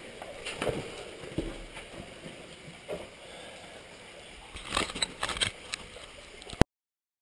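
Scuffing, rustling and short knocks of a caver's body, clothing and gear moving against rock in a tight cave passage, mixed with camera handling noise. A quicker cluster of scrapes and clicks comes about five seconds in, and the sound stops abruptly just before the end.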